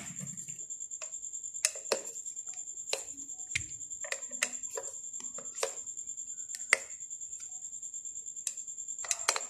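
Scattered small clicks and taps as a screwdriver works the screws on a water purifier pump's plastic pump head, with the head being handled between strokes. A steady thin high whine sits under the clicks.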